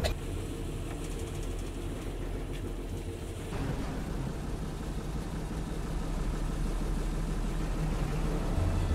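Bus engine running with a steady low rumble, heard from inside the bus.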